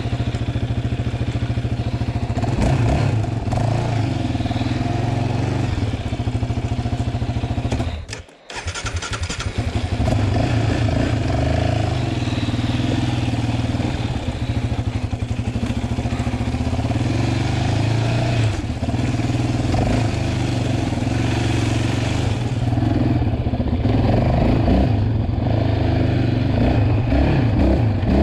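Yamaha Raptor 700R sports quad's single-cylinder four-stroke engine, fitted with an aftermarket Monster exhaust, running as the quad is ridden along a trail. The revs rise and fall with the throttle, and the sound dips sharply for a moment about eight seconds in.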